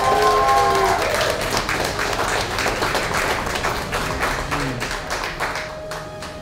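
A small crowd clapping and applauding, with a long held cheer at the start; the clapping thins out and fades near the end.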